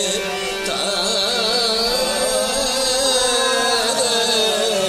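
Qawwali music: male singing in a winding, ornamented melody over a sustained harmonium, with the voice coming in less than a second in.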